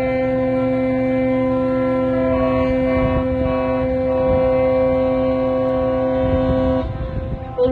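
Several ships' horns sounding together in long, steady blasts as a salute, one deep horn and one higher. The higher horn gives three short toots about two seconds in, then holds. The horns stop together near the end, and a horn starts up again just at the close.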